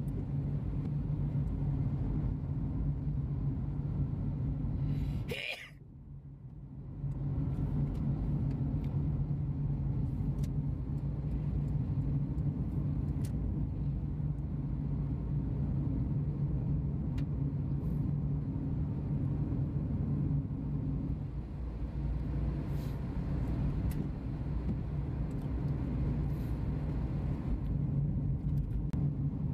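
Vehicle engine and road noise: a steady low engine hum that dips briefly about six seconds in.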